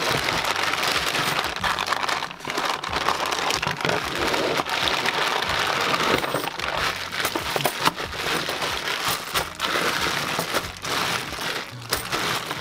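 Plastic coin bag crinkling continuously as it is cut open with scissors and pulled apart, with small plastic bags of 50p coins shifting and clicking as they are tipped out onto the mat.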